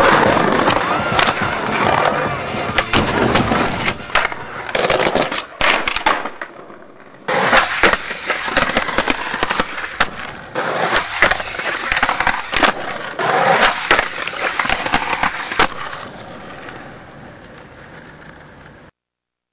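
Skateboard wheels rolling on pavement, with sharp knocks and clacks of the board popping and landing. It fades out near the end and stops.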